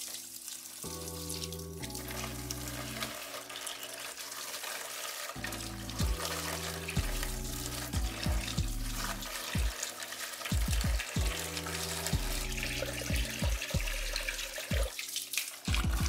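Water pouring from a hose and splashing into a plastic tray and bucket, a steady rushing splash, over background music with low bass notes.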